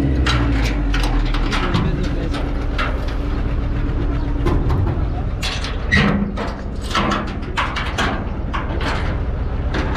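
Truck engine idling steadily, with scattered short knocks and clatter over it.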